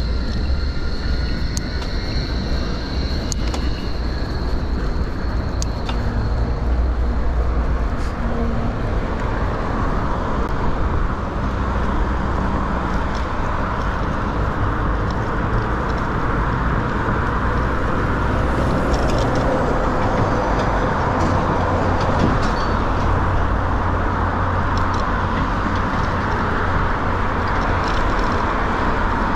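City road traffic heard from a moving bicycle, with wind buffeting the GoPro's microphone in a steady low rumble. A thin high whine runs through the first six seconds.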